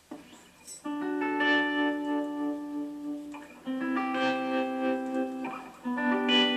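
Guitar playing slow chords, each struck and left ringing for about two seconds before the next.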